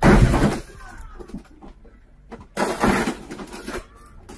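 Car sliding on snow into parked cars: a loud crunching burst at the start and another lasting about a second just past the middle.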